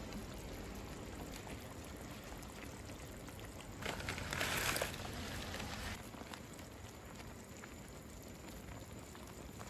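Steady rain falling, with a brief louder hiss about four seconds in.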